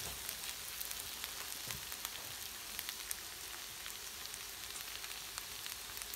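Sliced onion, bell peppers and carrot sizzling as they fry in hot oil in a large pan: a steady hiss with scattered small crackles.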